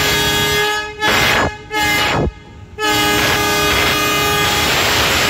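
Pakistan Railways GMCU-15 diesel locomotive's air horn sounding a loud chord, broken off just before a second in. Two short blasts follow, each dropping in pitch as it cuts off, then after a brief pause the chord is held again for about three seconds.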